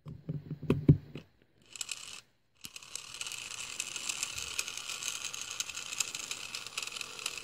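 A few plastic clicks as an AAA battery is snapped into a TrackMaster 2 toy engine chassis. About two and a half seconds in, the chassis's small battery motor and plastic gears start a steady whirr that keeps going.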